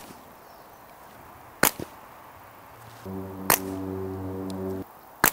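Slingshot firing a 9.5 mm lead ball: a sharp snap of the bands at the start, then further sharp cracks about a second and a half in, around three and a half seconds and right at the end, among them the ball striking a small can. A steady low hum with several overtones runs for nearly two seconds from about three seconds in.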